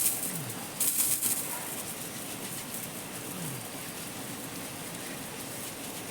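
Running water with a steady rush, and splashes right at the start and about a second in.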